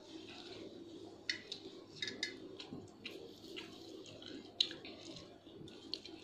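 Metal spoons clinking and scraping against steel plates of rice in scattered short clicks, the sharpest about four and a half seconds in, over a steady low hum.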